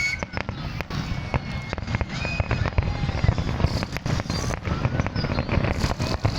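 Fireworks going off: a rapid, irregular run of sharp bangs and crackles over a continuous low rumble.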